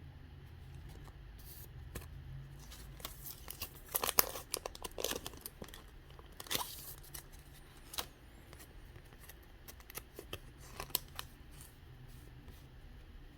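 Foil booster-pack wrapper crinkling and tearing in short rustling bursts, loudest about four seconds in, with scattered clicks of cards being handled.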